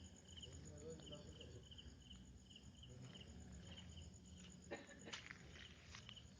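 Faint cricket chirping, a regular chirp about twice a second, with a few soft clicks and rustles about five seconds in.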